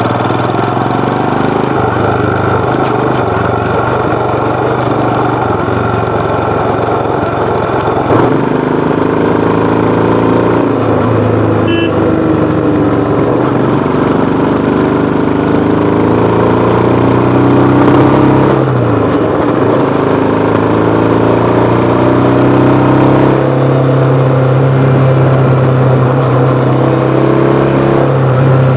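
Royal Enfield Himalayan BS6's 411 cc single-cylinder engine and exhaust under way, its pitch rising and falling with the throttle. About two-thirds through, the revs drop sharply and climb again.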